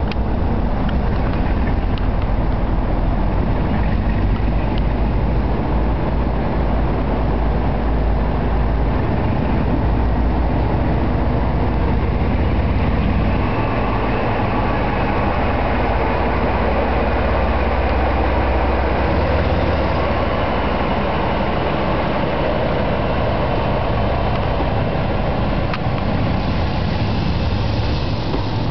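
Class 47 diesel-electric locomotive, its Sulzer twelve-cylinder diesel engine under power as it pulls a passenger train away from the station: a loud, steady heavy engine sound with a deep throb that gives way to more rumbling and rail noise about halfway through as the train moves off.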